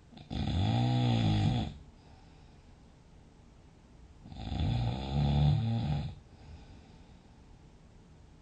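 A person asleep, snoring loudly: two long snores, one just after the start and another about four seconds in, each lasting well over a second, with quiet in between.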